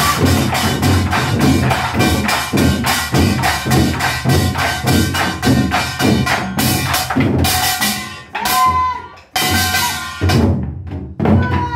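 Moduembuk, a set of Korean barrel drums, struck in a fast, even rhythm of about four strokes a second, with pitched music underneath. The drumming breaks off for about a second and a half near two-thirds of the way through, then starts again.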